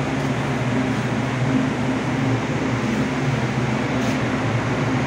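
Steady machinery drone of the offshore vessel, a low even hum with a noisy rush over it, heard inside its enclosed lifeboat.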